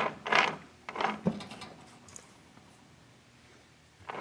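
Transmission gears of a 1996 Maico 440 gearbox being turned by hand in the open engine case: a run of rattling mechanical strokes about twice a second that stops about a second in and starts again near the end.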